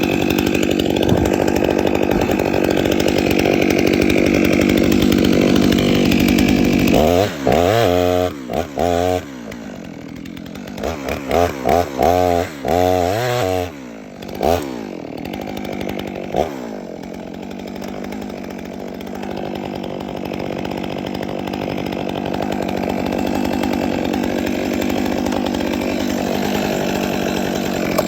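Chainsaw running hard while cutting into a dead fir tree for about seven seconds, then a series of quick throttle blips, each rev rising and falling, before it settles back into a steady run that grows louder toward the end.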